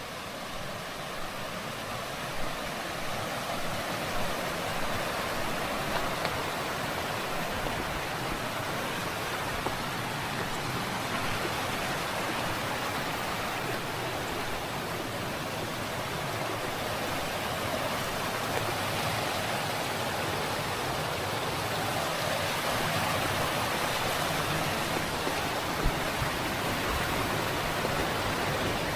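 Rushing water of a mountain stream, a steady even rush that grows gradually louder.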